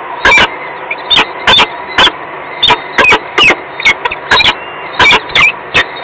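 Peregrine falcon giving short, sharp, high calls over and over, two or three a second, over a faint steady hum.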